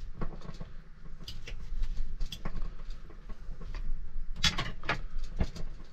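A metal knife and fork scraping and clicking against a plate in irregular strokes while mixing shredded cooked chicken. The sharpest scrapes come about four and a half to five seconds in.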